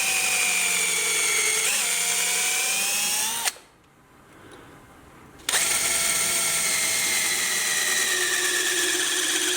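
Electric drill with a small bit boring holes through the rubber of an old leaf spring bushing. It runs in two stretches of about three and a half and four seconds, stopping for about two seconds in between, and its whine drifts down a little in pitch during each run.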